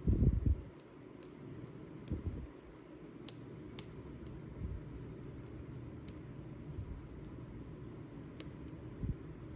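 Lock pick working the pins of a 6-pin Schlage mortise cylinder under tension: scattered small sharp metallic clicks, with a dull bump at the very start.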